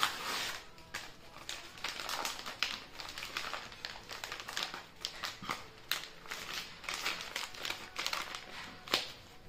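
Padded paper envelope being torn and picked open by hand: irregular paper crinkling and crackling.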